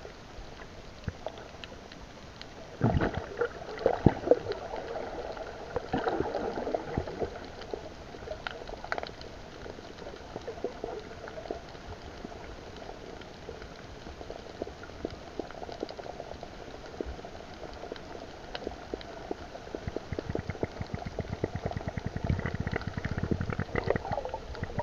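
Water heard with the microphone underwater: a muffled, bubbling wash with scattered clicks and knocks. There are louder surges about three, four and six seconds in, and a quick run of low knocks near the end.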